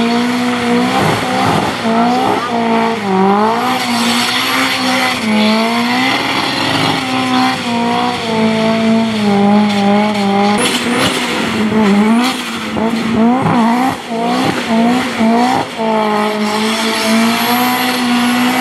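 Ford Sierra Cosworth's turbocharged 2.0-litre four-cylinder held at high revs through a burnout, its tyres spinning. The pitch keeps dipping and climbing back quickly as the throttle is worked.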